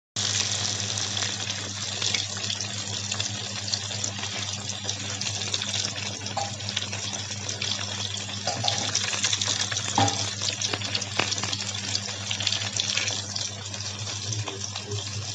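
Fish frying in hot oil: a steady sizzle with fine crackling throughout.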